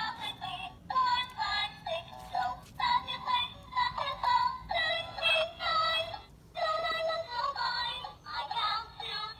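Electronic children's toy singing a synthesized song through its small, tinny speaker, in short melodic phrases with brief breaks between them.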